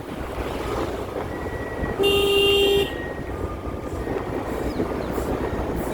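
A vehicle horn sounds once, a single steady tone lasting under a second, about two seconds in, over a steady low road rumble.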